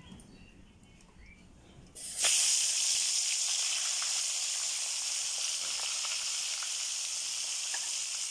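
Pieces of spice-coated silon fish going into hot oil in a wok about two seconds in, setting off a sudden loud sizzle. The sizzle eases only a little and keeps going as the fish fry.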